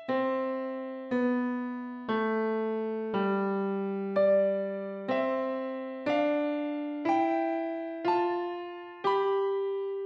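Background music on an electric piano: single notes struck about once a second, each left to ring and fade before the next.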